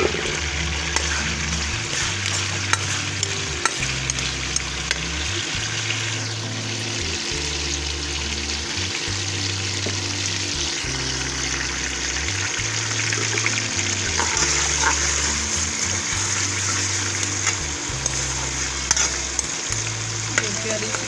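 Sliced garlic and ginger sizzling steadily in hot oil in a metal wok, stirred now and then with a metal spoon that gives occasional light clicks. A low background tune plays underneath.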